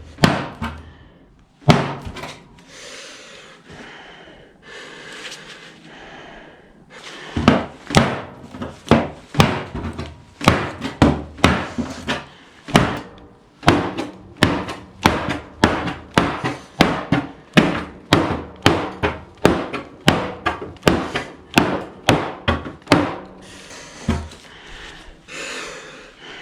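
Repeated hard knocks of a pocketknife striking wood. They come singly at first, then about a second in a steady run of one to two blows a second.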